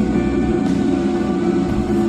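Background music with held, sustained notes over a dense low drone.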